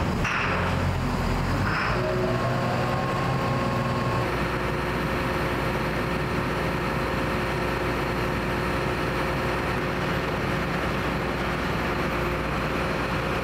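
Hagie self-propelled sprayer's diesel engine idling steadily just after being started, warming up; it is unsettled for the first couple of seconds, then runs evenly.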